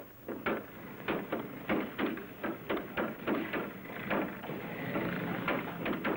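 Hammers knocking at an uneven pace, about three sharp blows a second, over a low steady hum.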